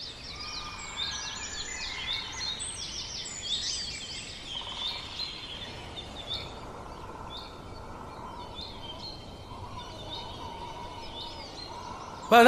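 Birds chirping: many short, high calls, busiest in the first few seconds and thinning out later, over a faint steady hiss.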